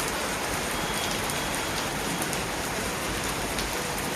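Steady rain falling and pattering on surfaces, with scattered faint drop ticks.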